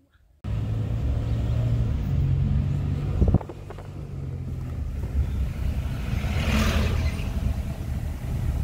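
Car running on the road, heard from inside the cabin: a steady low engine and road rumble. A single knock comes about three seconds in, and a brief hiss a little past the middle.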